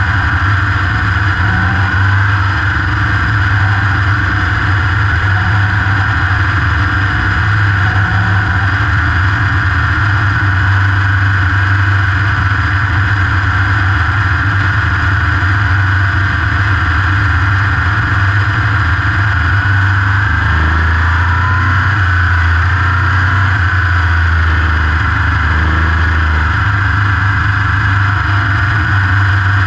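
Winged open-wheel race car's engine heard close up from onboard, running loud and steady at racing speed. It drops in pitch for a few seconds about twenty seconds in, then comes back up.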